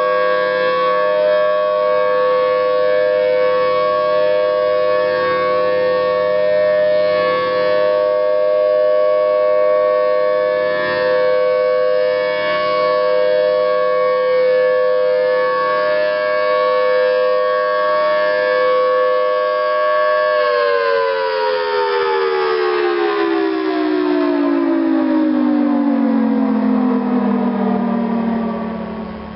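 Federal Signal Thunderbolt 1000T tornado siren sounding a steady two-tone chord, then winding down: from about two-thirds of the way through, the pitch falls steadily and the sound fades away at the end.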